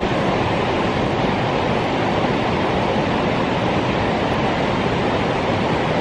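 Water released from a dam during a flush discharge: the jet from the outlet and the flow pouring over the weir below, a loud, steady rush of falling water.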